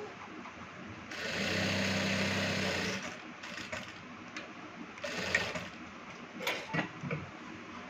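ZOJE industrial sewing machine running in stitching bursts: a steady run of about two seconds, then a shorter burst about five seconds in, with a few light clicks near the end.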